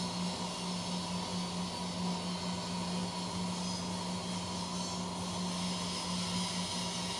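CNC machine running steadily: a constant low hum with a fainter higher tone over an even hiss, unchanging throughout.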